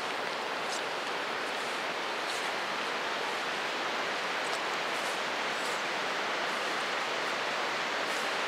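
Steady, even rushing hiss of open mountain ambience, with a few faint high ticks now and then.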